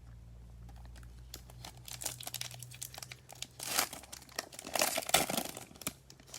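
A baseball card pack's wrapper being torn open and crinkled, in irregular rustling bursts that are loudest about halfway through and again near the end. A low hum runs under the first half and then stops.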